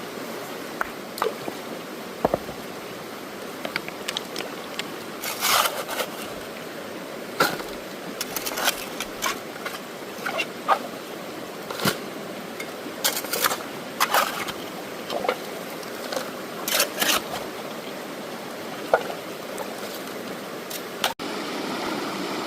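Gravel and water being worked in a gold pan: stones clicking and scraping irregularly against the pan and water sloshing, over the steady rush of a stream.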